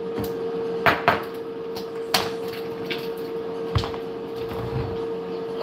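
Kitchen handling noises: a few sharp knocks and clatters, two close together about a second in and more a second or two later, over a steady hum.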